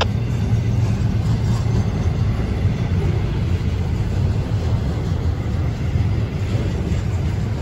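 Florida East Coast intermodal freight train rolling past: a steady low rumble from the train on the rails.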